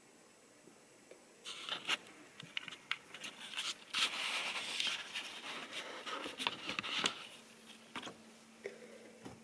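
Handling noise from a camera being picked up and moved: rubbing, scraping and sharp clicks on the microphone, loudest about four seconds in, settling after about seven seconds to a few faint knocks.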